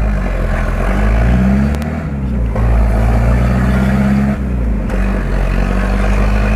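Chevrolet Opala engine revving loudly through an open exhaust cutout, its note rising and falling twice.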